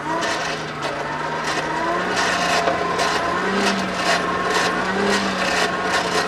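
Forge blower coming on and running steadily, a motor hum that rises a little in pitch twice, with air rushing through the coal fire and irregular scraping and crackling from the coals.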